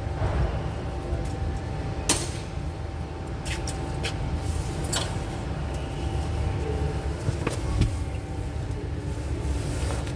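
Steady low mechanical rumble with a faint steady hum, broken by a few sharp clicks and knocks.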